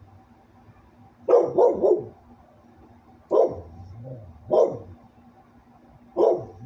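Dog barking: a quick run of three barks, then three single barks spaced a second or more apart.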